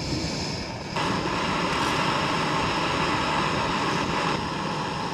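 Small canister gas stove burning with a steady hiss and low rumble, suddenly much louder about a second in as the burner flares up.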